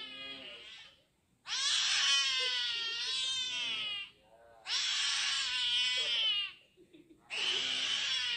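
Kitten crying in long, drawn-out wailing meows, one after another with short breaks, the pitch wavering within each call. It is crying after an injection.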